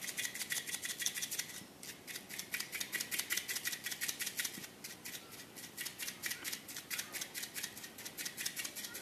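A metal spoon scraping and clicking quickly against a stainless steel bowl while dry gram flour and spices are stirred. The clicks come several a second with a light metallic ring, pausing briefly twice.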